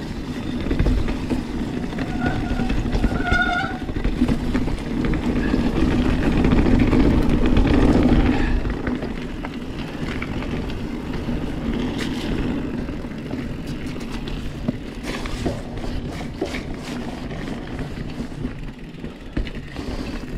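A Santa Cruz Hightower 29er mountain bike rolling fast over a dirt trail: tyre noise and rumbling wind on the camera microphone, swelling about six to eight seconds in, with scattered clicks and rattles from stones and the bike. Two short squeaks come about two to three seconds in.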